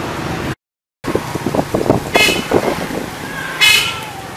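Street traffic noise with two short vehicle-horn honks, one near the middle and one near the end. About half a second in, the sound cuts to total silence for half a second.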